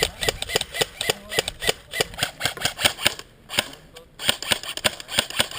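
Airsoft guns firing a fast string of shots, about five or six a second, with a couple of brief pauses.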